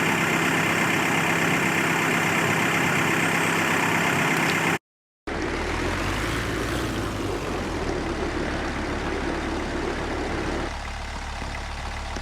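An engine running steadily, as of a vehicle idling. It cuts out abruptly about five seconds in and comes back half a second later with a deeper sound.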